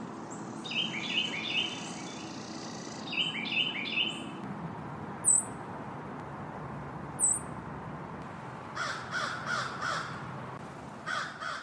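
Birds calling outdoors: two runs of repeated high, down-sliding notes, two single sharp very high notes, then near the end two runs of quick rough notes about four a second.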